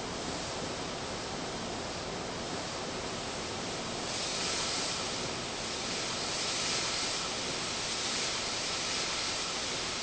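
Brooms sweeping a tiled pavement: a steady hiss of bristles that grows brighter and a little louder in swishing swells from about four seconds in.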